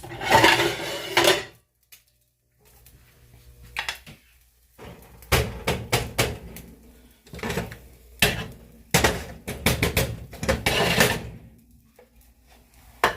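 Kitchen clatter while an omelet is plated: a spatula scraping and knocking against a frying pan and plate, in several separate bursts with pauses between.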